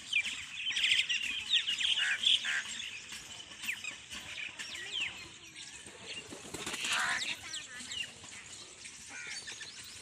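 Many birds chirping and calling together in quick, overlapping notes. The calls are busiest and loudest in the first three seconds, with another louder bout about seven seconds in.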